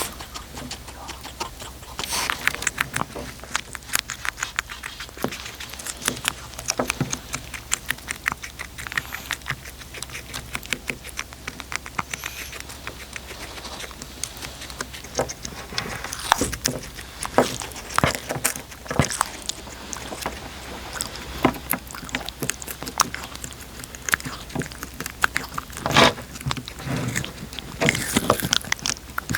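A cat eating close to the microphone: a dense run of quick small clicks and wet smacks from its chewing and licking, with a few louder crunches now and then.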